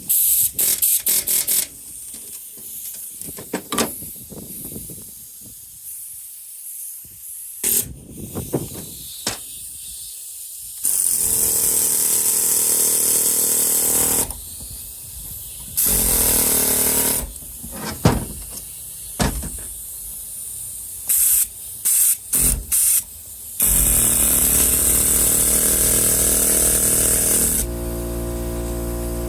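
A Harbor Freight pneumatic air hammer fires in short bursts and longer runs, with loud air hiss, against the resin-bound copper windings of an electric fan motor. Metal knocks and clanks come between the bursts. The hammer is failing to drive the windings out. A steady hum starts near the end.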